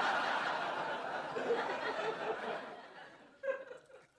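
Studio audience laughing after a punchline, the laughter dying away over about three seconds. A short vocal sound follows near the end.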